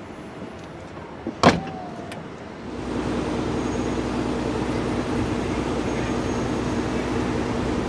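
A Mercedes-Benz S65 AMG's power-operated trunk lid pulls shut and latches with one sharp thud about one and a half seconds in. From about three seconds in, a steady vehicle hum with a low drone takes over.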